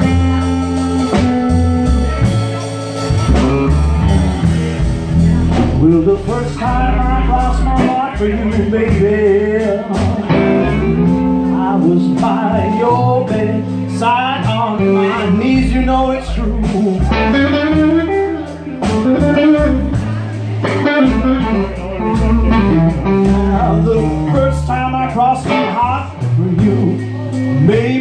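Live blues band playing an instrumental passage: amplified harmonica wailing and bending notes over electric guitar, upright bass and drums.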